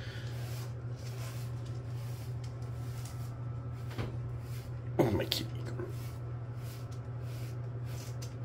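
Soft pin brush stroking a cat's fur, a quiet swishing repeated about twice a second over a steady low hum. About five seconds in comes a brief throaty voice-like sound.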